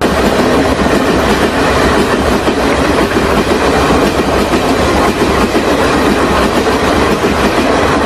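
Train running along the rails: a steady, dense rush of wheel-and-rail noise that starts abruptly.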